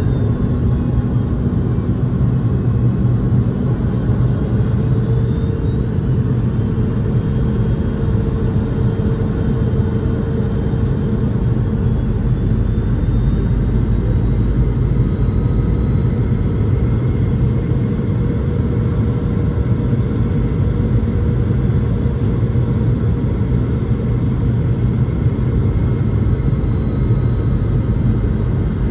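Boeing 717-200's tail-mounted Rolls-Royce BR715 turbofans heard inside the cabin from a rear seat during approach: a steady low drone and rumble. Faint high whines climb slightly about halfway through.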